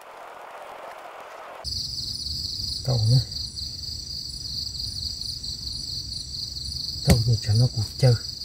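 Crickets trilling steadily at night in a continuous high, pulsing chorus, which comes in suddenly about two seconds in over a low hum.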